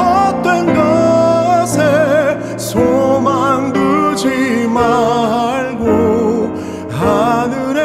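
Male solo singer performing a slow Christian worship ballad with wide vibrato on the held notes, accompanied by grand piano.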